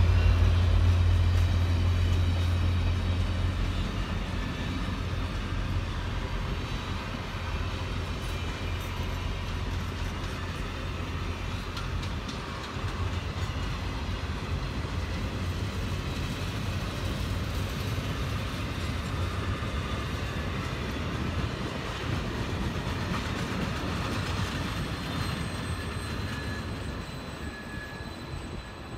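Office cars of a passenger-style train rolling past at close range: a steady rumble and rattle of steel wheels on the rails, with faint high wheel squeal. A deep locomotive drone fades away over the first few seconds, and the rolling noise eases off near the end as the last cars go by.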